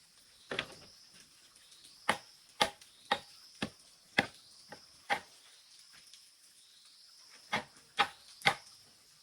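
Sharp chopping strikes, about one every half second, in two runs with a pause of about two seconds between them. Insects trill steadily behind.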